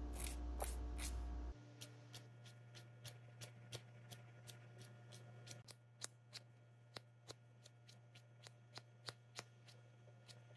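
Faint, quick scrapes of a nail file against the edge of a stick-on gel nail strip, about two or three short strokes a second, filing off the overhang at the fingertip.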